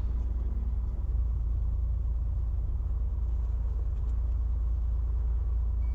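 Piper Cherokee Six's six-cylinder Lycoming engine running steadily at low power while the plane taxis, heard inside the cabin as a constant deep drone.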